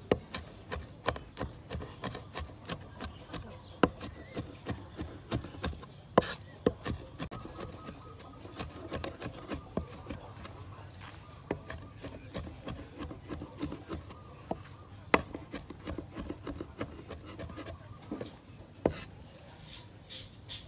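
Cleaver chopping garlic cloves on a wooden cutting board: a run of sharp knocks, about two a second at first, then quicker and lighter, with a few harder strikes. Near the end the blade scrapes across the board as the minced garlic is gathered onto it.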